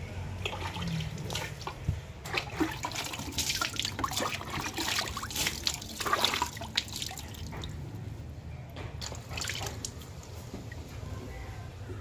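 Water splashing and dripping in irregular bursts, busiest in the middle seconds and thinning out near the end.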